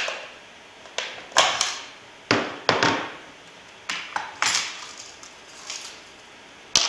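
Steel rifle parts clicking and clacking against each other and the wooden tabletop as the rifle is handled and reassembled: about nine sharp knocks at uneven intervals, some in quick pairs, each ringing briefly.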